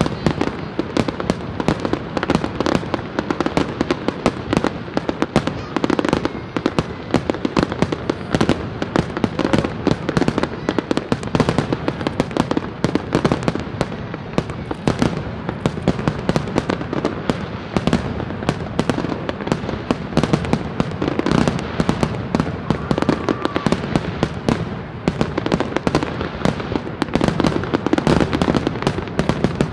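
Fireworks display going off without a break: a dense run of bangs and crackling, many reports a second, from shells bursting in quick succession.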